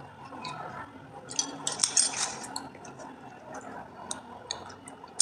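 Close, wet squishing and crackling as a hand grabs and squeezes a moist crumbly mass, then takes a handful to the mouth to eat. The sound is busiest and loudest a little over a second in, then thins to scattered clicks.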